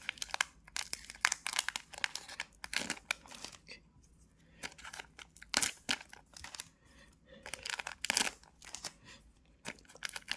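Trading card pack wrappers being torn open and crinkled by hand, in a run of irregular sharp rips and crackles.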